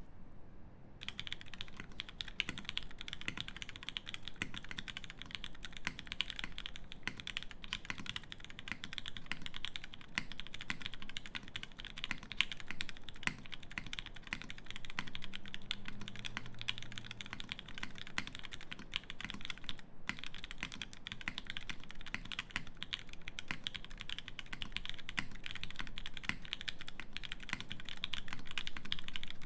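Merisi Sessantacinque mechanical keyboard being typed on steadily and quickly: a dense, unbroken run of keystrokes on lubed Nixie switches in an aluminium plate with GMK keycaps and a tape mod.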